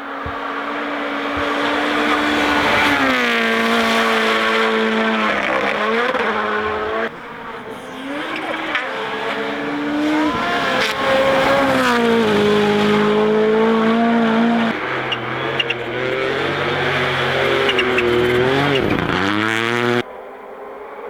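Rally cars driven flat out on a stage: engines rev hard, pitch climbing and falling with gear changes and as the cars pass. The sound cuts off abruptly about seven seconds in and again near the end as one clip gives way to the next.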